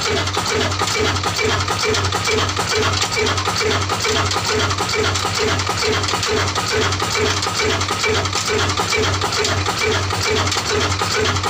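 Old Ruston-type 'desi' single-cylinder horizontal diesel engine with a heavy flywheel, running steadily at a slow, even beat of about three firing thumps a second.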